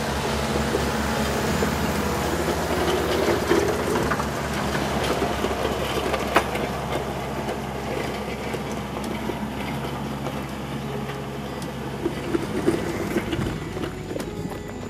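Kubota MX5100 tractor's diesel engine running steadily under load while it drags a land plane over a gravel road, with loose gravel and rocks grinding and rattling under the plane's cutting edges and the tires. A single sharp knock about six seconds in.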